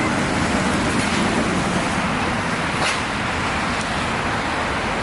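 Steady road traffic noise from vehicles passing close by, with engines and tyres, and a brief sharp click about three seconds in.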